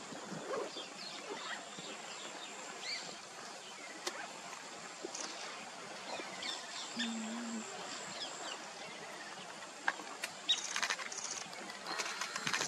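Outdoor ambience of scattered bird chirps over a steady high insect buzz, with a fast pulsing insect trill shortly before the end.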